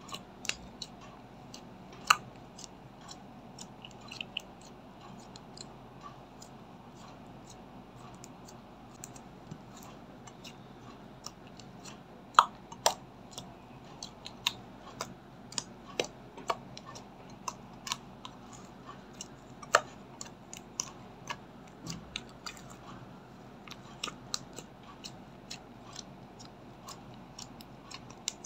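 Slime being kneaded and pressed by hand, making irregular sharp clicks and pops, a few much louder than the rest.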